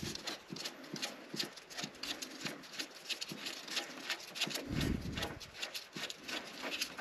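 Spin-on oil filter being unscrewed by a gloved hand, giving irregular clicks and scrapes as the canister turns against the engine block. A duller thump comes about five seconds in.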